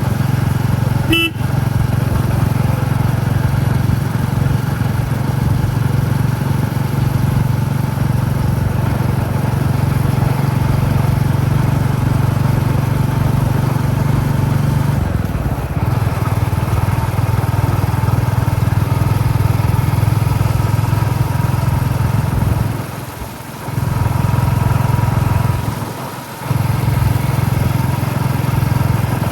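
Royal Enfield Classic 350's single-cylinder engine running steadily under way, its exhaust thump heard from the rider's helmet. The engine sound drops away briefly twice near the end.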